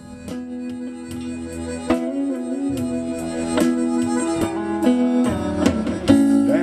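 Live instrumental intro of a slow blues song on acoustic-electric guitar and bass guitar: evenly picked notes under long held melody notes, fading in and growing louder.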